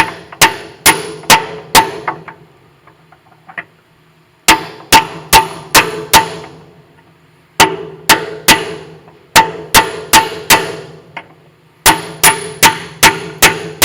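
A hammer striking a large aluminium block held against a bearing, driving the bearing and gear selector shaft home in the lathe headstock. The blows come in quick runs of four to six, about two a second, with short pauses between runs, each blow ringing briefly.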